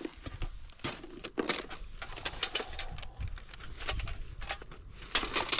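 Camping gear being handled and unpacked: an irregular string of small clicks, knocks and rustles.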